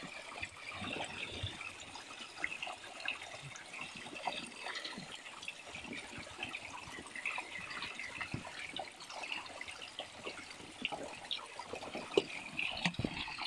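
Water of a small mountain stream trickling and splashing over stones, a steady babble of many small splashes.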